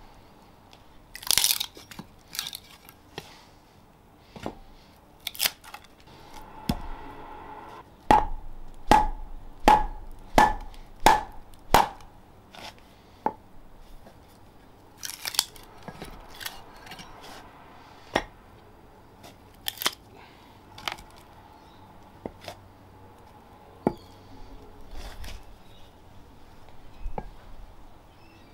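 Wooden club striking the back of a froe to split a green plum log: a series of sharp knocks, with a quick run of about six blows, each with a short ring, about a third of the way in. Between the runs of blows come scattered smaller knocks and cracks as the froe is worked down the split.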